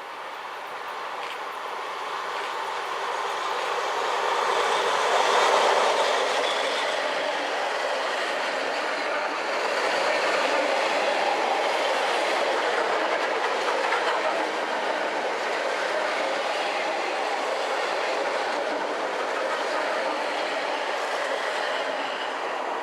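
EPL9T electric multiple unit passing by, its wheels running on the rails. The noise builds over the first five seconds or so, stays loud while the cars roll past, and begins to fade near the end.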